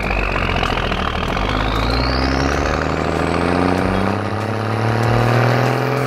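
Dump truck engine sound effect running and revving up as the truck pulls away, its pitch climbing steadily, with a high whine rising alongside it.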